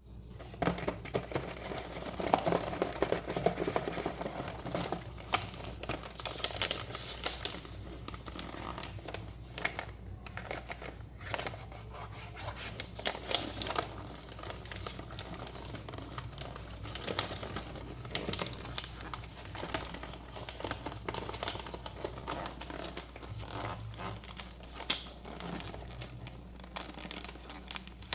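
Toy packaging being opened by hand: irregular crinkling and rustling with occasional tearing and sharp clicks.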